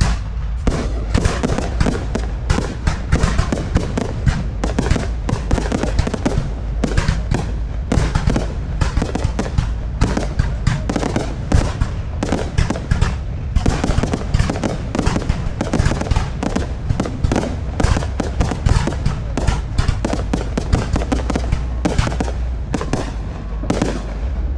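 Fireworks display going off nonstop: a dense, rapid string of bangs and crackles, many a second, that stops near the end.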